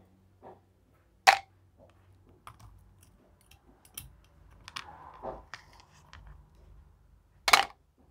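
A pink plastic spoon clicks and scrapes against a plastic tray as it stirs slime mixed with small hard candy pieces. The pieces and spoon make sharp clicks, the loudest about a second in and again near the end, with fainter taps and soft squelching between.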